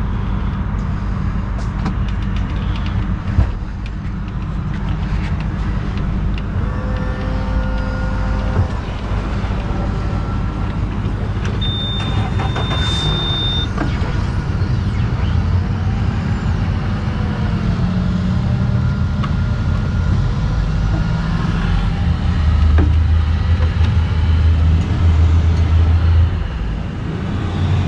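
Suzuki outboard motor running at low speed, a steady low drone that grows louder for a few seconds near the end. A short high beep about twelve seconds in.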